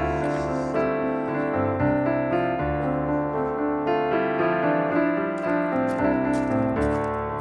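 Background music played on piano, a steady flow of notes and chords.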